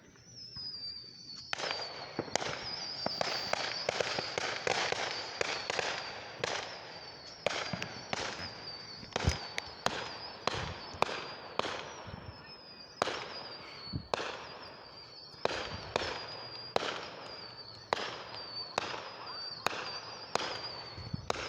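Neighbourhood fireworks going off: a rapid, irregular string of sharp bangs and crackling, one or two reports a second. Over it runs a high whistling tone that slides slowly down in pitch, starting at the outset and again about thirteen seconds in.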